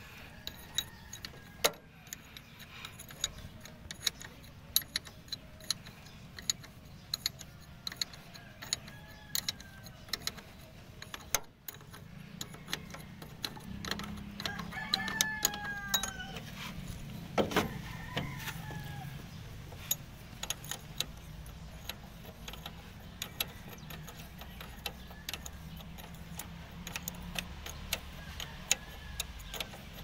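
Sharp, irregular metal clinks and taps of open-end wrenches on the bolts, spring bracket and diaphragm housing of an Airman air compressor's regulator as the diaphragm is being changed, with the compressor not running. A long bird call with falling tones sounds about halfway through.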